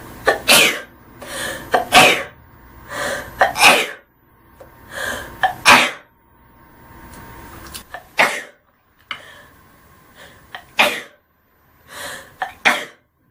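A young woman sneezing again and again: a long string of sharp sneezes one to three seconds apart, each with a quick breath in just before it.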